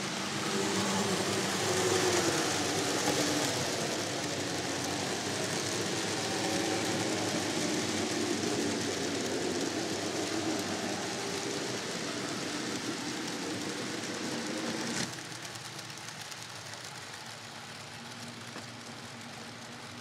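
N gauge model trains running on the layout: a steady rolling rumble of small wheels on track with a faint wavering motor whine. About three-quarters of the way through there is a click and the sound drops suddenly quieter.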